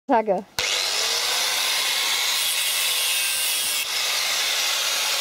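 Angle grinder cutting into the steel of an old mountain bike near the crank. It starts abruptly about half a second in and then runs steadily as a loud, high grinding hiss.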